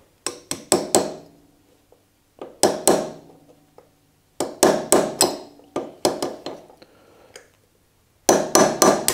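A hammer tapping a small tool against the pad-retaining pin of a Yamaha Aerox scooter's rear brake caliper to drive the pin out. Sharp metallic taps come in quick bunches of three to five, each with a short ring, with pauses of a second or so between bunches.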